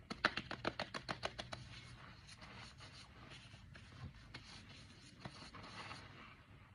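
Nitrile-gloved hands rubbing against a short beard: a quick run of scratchy strokes in the first second and a half, then softer, scattered rubbing.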